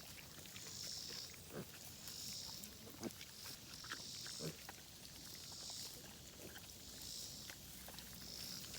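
A sow with her newborn litter grunting softly, a few short low grunts a second or so apart. A faint high rasping sound repeats about every second and a half.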